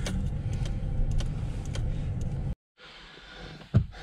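Pickup truck engine and road rumble heard inside the cab as the truck, towing a boat trailer, moves slowly, with a few light clicks; it cuts off abruptly about two and a half seconds in. After that, quieter ambience and a single sharp thump near the end.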